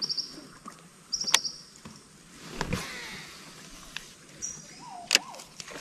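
Quiet riverside with birds chirping: short high trills near the start and about a second in, then a high whistle and a lower wavering whistle near the end. A few sharp clicks are heard in between.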